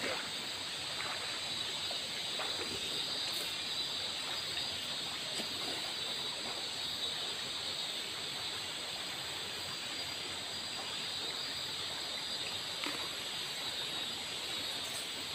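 Steady rushing of a shallow river flowing around the people sitting in it, with a couple of faint clicks.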